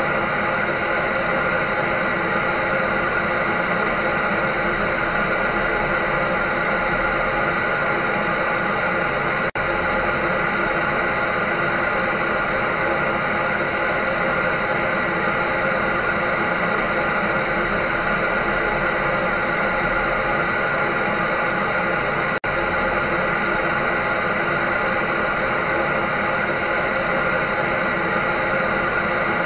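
Electric dryer running steadily: a continuous whooshing hiss of blown air with a fixed motor hum underneath. It cuts out for an instant twice, about ten and twenty-two seconds in.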